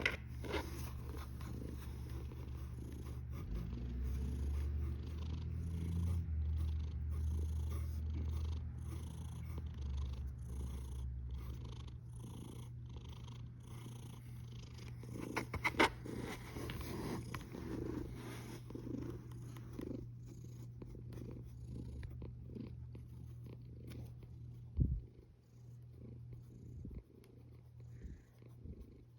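Sleeping cat snoring: a low, steady rumble, strongest in the first third and softer after about 12 seconds, with a couple of soft knocks around the middle and near the end.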